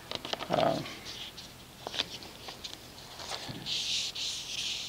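Light handling clicks and rustles, then, from about three and a half seconds in, a steady high hiss of 2000-grit wet-dry sandpaper on a sponge sanding pad being rubbed over a car's wet hood paint.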